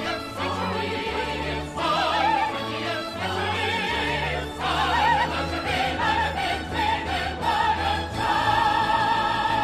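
A show tune sung in operatic style with orchestra. About eight seconds in, the voices settle on a long high note held with vibrato.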